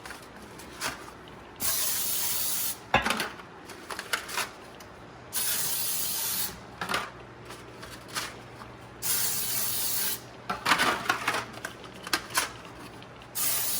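Aerosol can of flour-and-oil baking spray being sprayed into small baking pans in four one-second sprays a few seconds apart, with short knocks and clicks between them as the pans are handled.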